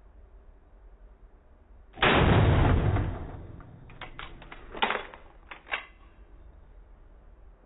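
A single 12-gauge shotgun shot about two seconds in, its boom trailing off over about a second, followed by a few short, sharp clicks and knocks.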